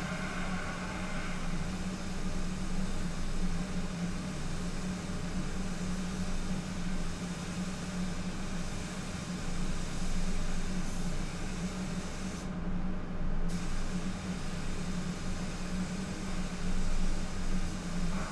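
Air hiss of a paint spray gun laying on base coat, over a steady low hum from the spray booth's ventilation. The hiss stops for about a second two-thirds of the way through, while the hum carries on.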